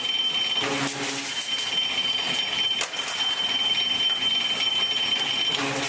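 Rotary circle-cutting shear slicing stainless steel sheet: a steady high-pitched squeal over machine running noise, breaking off briefly about a second in and again near three seconds.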